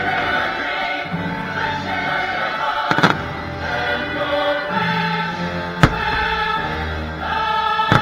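Fireworks show music with a choir singing, and firework shells bursting; two sharp bangs stand out above the music, about three seconds in and a little before six seconds.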